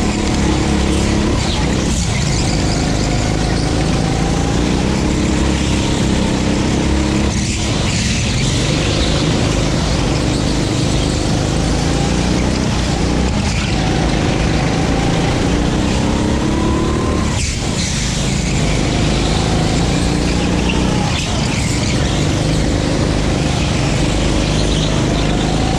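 Go-kart engine running at racing speed, its revs repeatedly climbing and falling as the kart accelerates and slows through the corners, with two sharp drops where the throttle is lifted.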